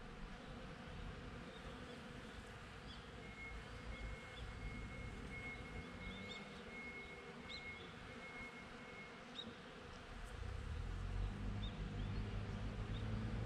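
Bees buzzing steadily, with scattered short bird chirps and a thin steady high tone for several seconds in the middle. From about ten seconds in, a low rumble swells beneath them.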